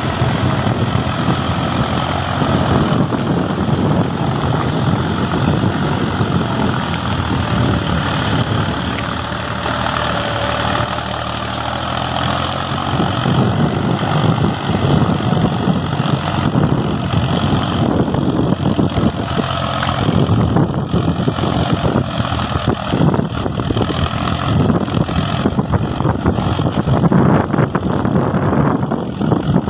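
Solis 4415 two-wheel-drive tractor's diesel engine running steadily under load while pulling a cultivator through the soil.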